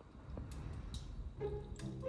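Soft background music: short held notes with light ticking percussion.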